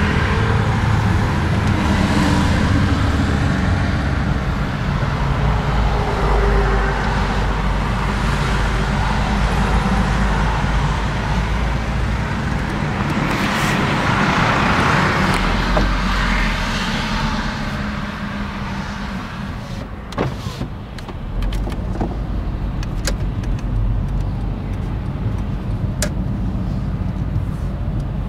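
Steady low engine rumble and road noise in slow motorway traffic. About halfway through, a fire engine passes close alongside, its engine and tyre noise swelling and then falling away. A few sharp clicks come near the end.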